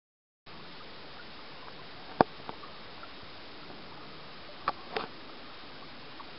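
Steady faint hiss that starts after half a second of dead silence, with a few sharp clicks: a strong one about two seconds in and two more close together near five seconds.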